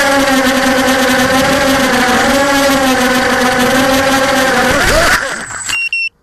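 ZMR250 racing quadcopter's brushless motors and 5-inch propellers whining in flight, picked up by the onboard camera as a steady pitched hum with rushing air. About five seconds in the pitch wavers, a brief high tone sounds, and then the sound cuts off suddenly.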